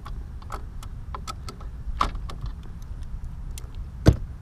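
Small ratchet with an 8 mm socket clicking irregularly as it breaks loose the bolts holding a GY6 150cc scooter's cooling fan. There is a sharper metal knock about two seconds in and a louder one near the end.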